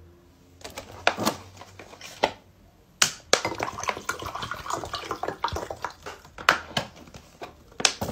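Water poured from a plastic bottle into a drinking glass: a continuous stream for about three seconds, starting about three seconds in. Sharp clicks and knocks of the bottle being handled come before and after the pour.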